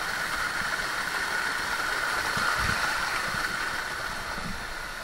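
Steady rush of flowing stream water, with a few soft low thumps.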